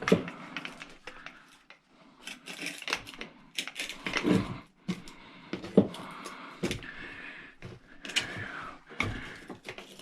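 Irregular clicks, taps and scrapes of hand tools working at tight metal parts of an old 12 V battery charger being taken apart.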